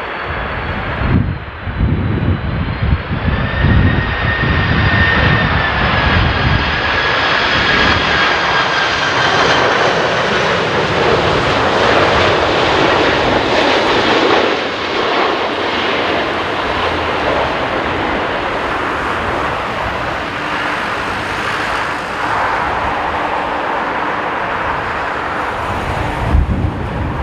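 Jet airliner's engines running loudly as it passes, with a high whine over a steady roar that rises slightly a few seconds in and then slowly falls. Gusts of strong wind buffet the microphone near the start and again near the end.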